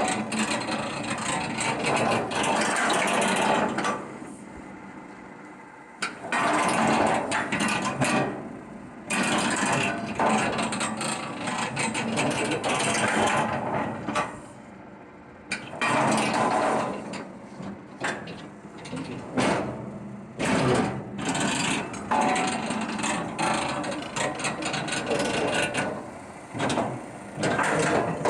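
A hydraulic scrap baler cycling under power, its pump and valves hissing loudly in bursts of a few seconds with quieter gaps between them. There are a few sharp mechanical clicks about two-thirds of the way in.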